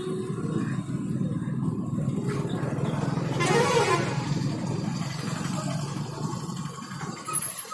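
Street traffic running with a steady low rumble, and a vehicle horn honking once, for under a second, about three and a half seconds in. The horn is the loudest sound.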